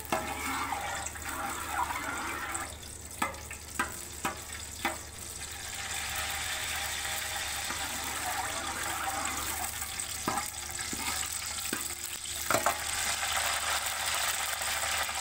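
Bay leaves and star anise sizzling in hot ghee in an aluminium pot, stirred with a steel ladle that knocks sharply against the pot several times about three to five seconds in and twice more later. A steady low hum runs underneath.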